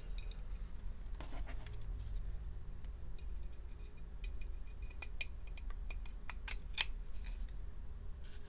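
Steel magazine of a Browning Model 1971 .380 ACP pistol being handled and slid into the grip's magazine well: scattered light metallic clicks and scrapes.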